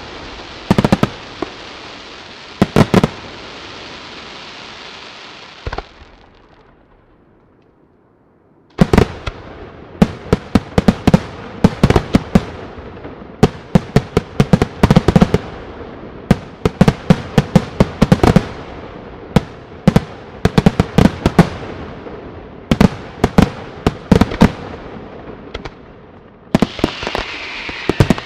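Aerial fireworks display: a few shell bursts over a hiss of crackling stars, fading to a brief lull about six seconds in. From about nine seconds a rapid run of sharp bangs follows, several a second, and near the end a hissing crackle sets in.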